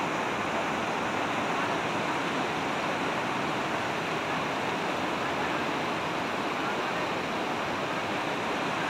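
Fast mountain stream rushing over boulders in a steady whitewater roar.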